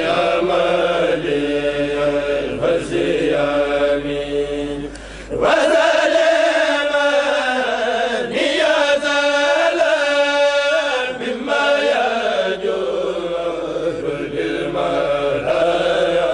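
Kourel (Senegalese religious chanting group) of men chanting a khassida together, voices only. There is a brief dip about five seconds in, then the chanting resumes louder.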